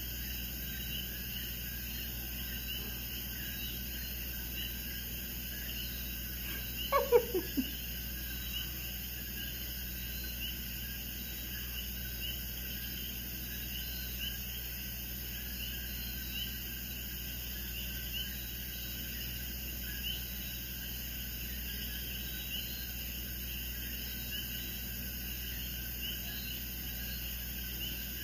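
Insects chirping steadily in the background, a high chirp repeating a few times a second. About seven seconds in a single short call slides steeply down in pitch; it is the loudest sound here.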